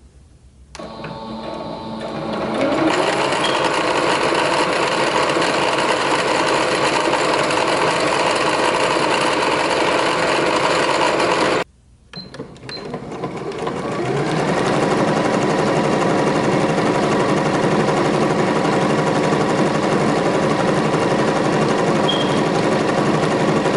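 Two household sewing machines sewing fabric in turn. First a Singer Stylist 7258 speeds up and stitches fast, sounding really loud, as if the bobbin underneath is shaking. After a short break about halfway through, a Janome New Home DC1018 speeds up and stitches steadily, running smoothly and without shaking.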